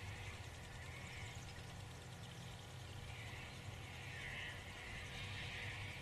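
Faint outdoor field ambience: a steady low rumble with a hazy high hiss that swells over the second half.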